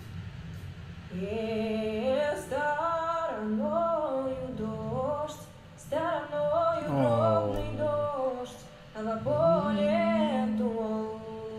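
A woman singing a slow Russian folk melody in long, gliding phrases, with a steady low held note beneath; the singing breaks off briefly twice.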